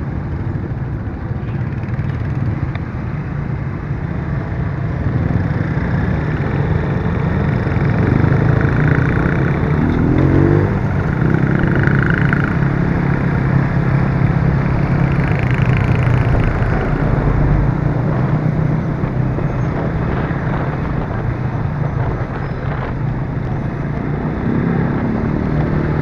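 Motorcycle engine running on the move through town traffic, with the engines of nearby motorbikes and tricycles mixed in. An engine note rises briefly about ten seconds in.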